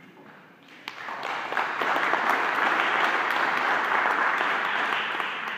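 Audience applauding. It starts about a second in, quickly builds to a full round of clapping and begins to ease off near the end.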